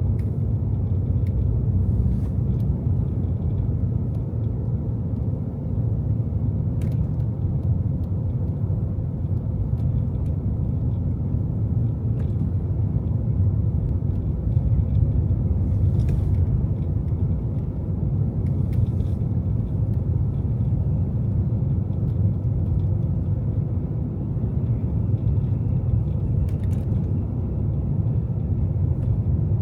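Car driving on snowy city streets: a steady low rumble of road and engine noise, with a few faint clicks.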